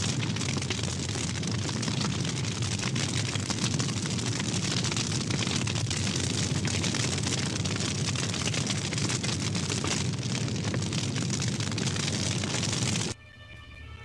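Sound effect of a fire burning: a steady rushing noise that cuts off suddenly near the end. A few steady musical tones follow.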